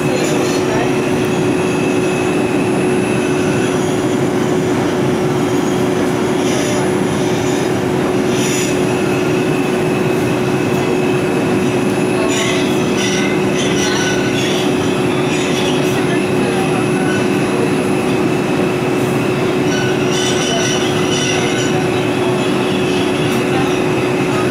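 An R142 subway car running at speed through a tunnel, heard from inside the car: a steady roar of wheels on rail with a constant electric hum. High wheel squeals flare up several times along the way.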